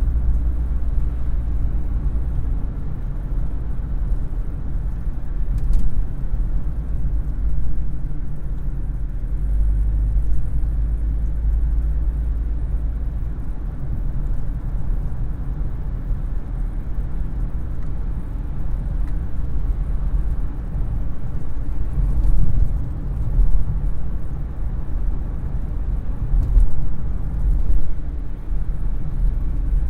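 Car engine running, heard from inside the cabin as a steady low rumble that swells slightly a few times.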